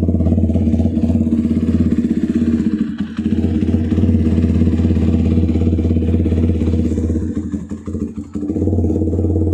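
Benelli Leoncino 250 SE motorcycle's single-cylinder engine running through an aftermarket exhaust, a steady low, pulsing exhaust note. It drops off briefly about three seconds in, and again for about a second near the end before it picks up.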